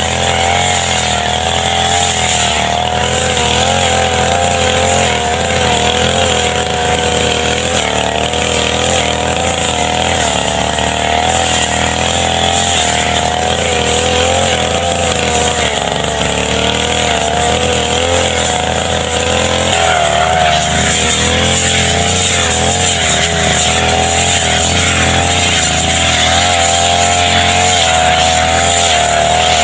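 Small brush cutter (grass-cutting machine) engine running continuously, its speed wavering up and down.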